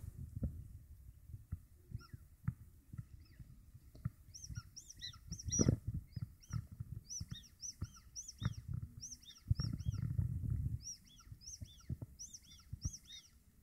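Small birds chirping in quick, high, repeated notes from about four seconds in, over low rumbling and scattered knocks.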